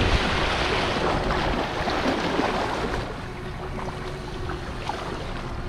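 River water rushing over a shallow riffle, with wind buffeting the microphone; it eases a little about three seconds in.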